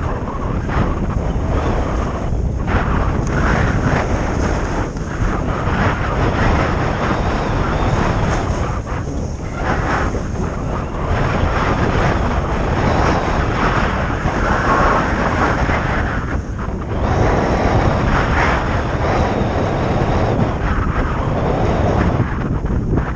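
Wind buffeting the microphone of a camera moving fast downhill, a steady low rumble, with the hiss of edges sliding over packed groomed snow that swells and fades with the turns.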